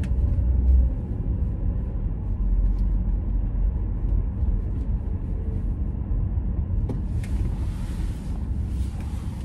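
Steady low road and engine rumble inside a moving car's cabin, with a broader hiss joining about seven seconds in.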